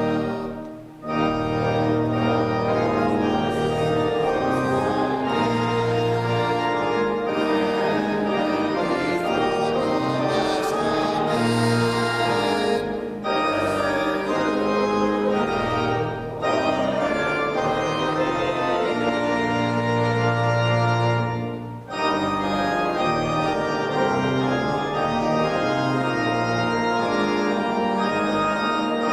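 Organ music: sustained chords held in long phrases, with a few short breaks between phrases.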